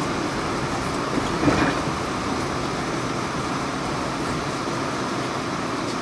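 Interior noise of a Pullman-Standard R46 subway car running between stations: a steady rumble and hiss of wheels on rail, with one brief louder clank about a second and a half in.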